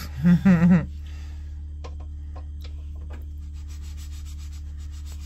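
A short vocal sound in the first second, then light scraping and rubbing of a spatula and frying pan as a pancake cooks and is loosened, with scattered small clicks over a steady low hum.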